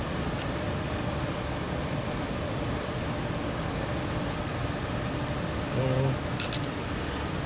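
Steady background hum with light metal clicks as brake pad hardware is handled: a faint click early and a quick cluster of sharp clinks about six and a half seconds in.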